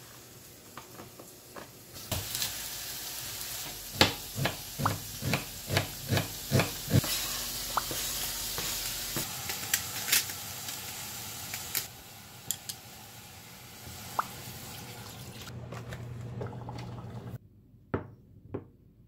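Pork curry cooking in a steel pot: a steady sizzle, with a run of sharp clacks of a utensil against the pot a few seconds in. Near the end the sizzle stops, and a ladle clinks twice against ceramic bowls.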